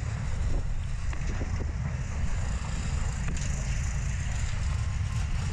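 Wind buffeting the microphone of a camera mounted on a slingshot ride's capsule as it swings through the air: a steady, heavy low rumble.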